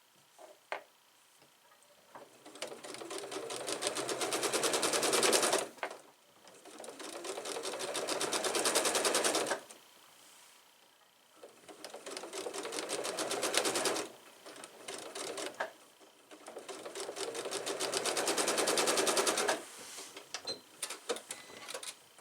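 Domestic sewing machine stitching in four separate runs, each speeding up as it goes, with short pauses between them. It is freshly rethreaded at needle and bobbin and is now sewing properly. A few light clicks follow near the end.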